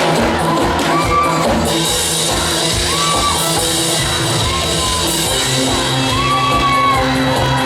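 Trot song backing music in an instrumental break, with a steady beat and a short repeated melodic figure, and some shouting over it.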